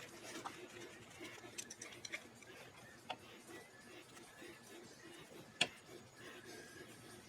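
Faint, scattered clicks and taps of tools and parts being handled during car assembly, with one sharper click about five and a half seconds in.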